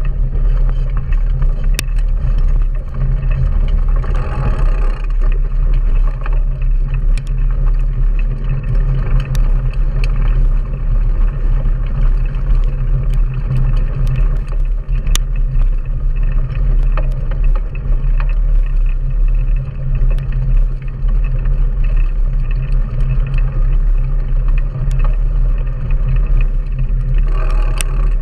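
Wind and road vibration on a handlebar-mounted action camera as a mountain bike rolls over a gravel dirt track: a loud, steady low rumble, with scattered clicks and ticks of gravel and bike rattle.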